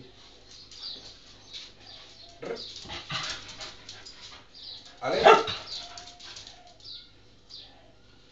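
Cocker spaniel barking: one loud bark about five seconds in, with shorter, quieter yelps a couple of seconds before it.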